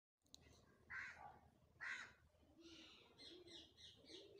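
Faint bird calls cutting in after a moment of dead silence: two harsh calls about a second apart, then a quick run of high chirps over lower, rounder notes.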